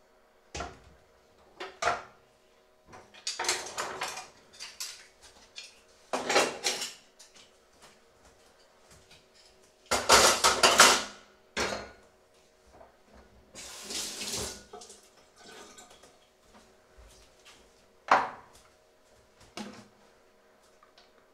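Kitchen clatter of a stainless steel bowl and pots being handled and set down, a few separate knocks, with short spells of water running from a tap, the loudest about halfway through.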